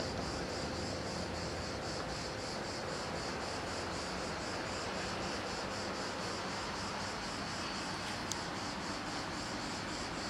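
Steady outdoor background noise with faint, even insect chirping, about four pulses a second, and one short click late on.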